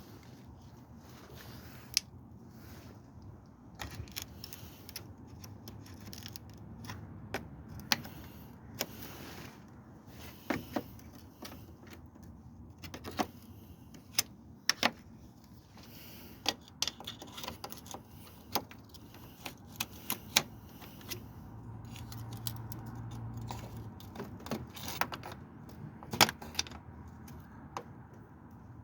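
Irregular sharp metallic clicks and clinks of hand tools and metal parts being handled during work on a car, over a faint low hum.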